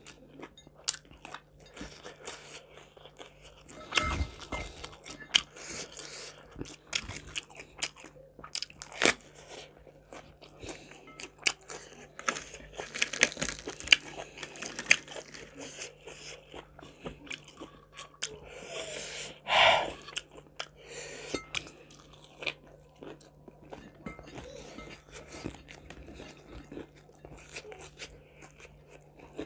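Close-up eating sounds: crispy fried chicken coating crunching between the teeth, with chewing, biting and wet mouth clicks throughout. Two louder noisy bursts stand out, about four seconds in and again near the twenty-second mark.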